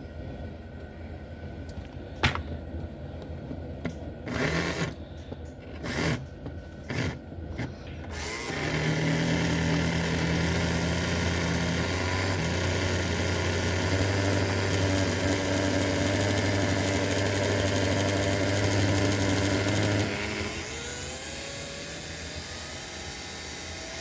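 Life-Like HO slot car motor with a brand-new armature and brushes running on a test stand: a few short blips, then a steady high-speed spin for about twelve seconds before it drops off to a quieter run.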